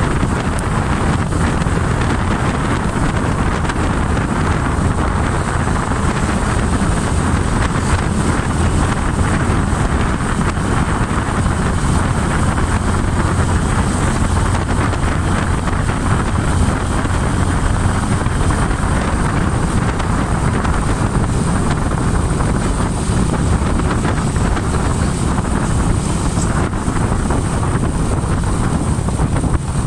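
A Honda Splendor NXG 100 cc motorcycle's single-cylinder four-stroke engine running steadily while riding, with wind rushing over the microphone.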